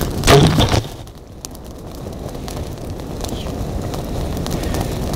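Wind buffeting the microphone in a steady low rumble that slowly builds, after a short loud burst of noise within the first second.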